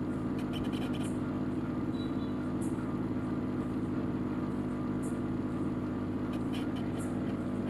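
Hot-air rework blower running steadily, a hum with an airy rush, as it heats a surface-mount chip to melt its solder onto the circuit board. A few faint light clicks come and go.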